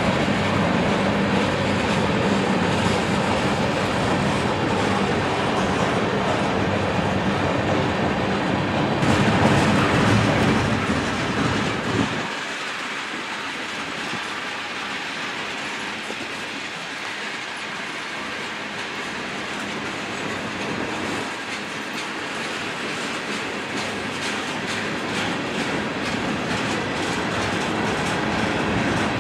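Freight train of tank cars rolling past, steel wheels clacking over the rail joints. About twelve seconds in, the low rumble falls away and the passing goes on quieter.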